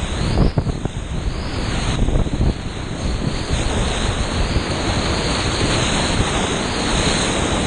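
Big-water whitewater rapid rushing and splashing around a kayak, heard up close from the boat at high river flow, with wind buffeting the microphone.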